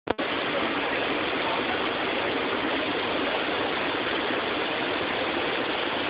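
Waterfall rushing steadily, an even wash of falling water, after a brief click at the very start.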